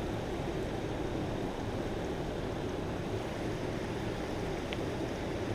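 Shallow creek water rushing steadily around wading boots and over a rocky bed, a constant wash with no distinct events.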